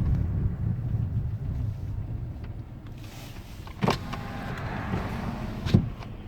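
Cabin noise of a 2012 Hyundai Elantra slowing to a stop: low road and engine rumble that fades away over the first couple of seconds, then a quieter hum. Two sharp knocks come about four seconds in and again near the end.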